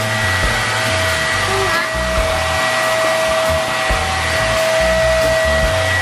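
Imarflex cyclone vacuum cleaner running steadily at full suction: a rushing of air with a steady high motor whine.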